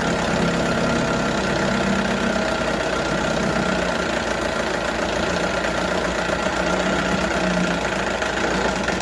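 1978 Johnson 6 hp two-stroke outboard motor running steadily at low speed in a test tank. The owner suspects its carburettor is set a little too lean.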